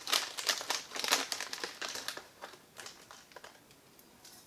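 Foil tea pouch crinkling as it is handled and dry tea leaves are taken out of it. It is a dense run of crackles for about two seconds, then sparser crinkles that fade out.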